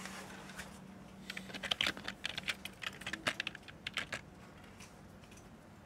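Typing on a computer keyboard: a quick, irregular run of keystrokes starting about a second in and lasting about three seconds, then stopping.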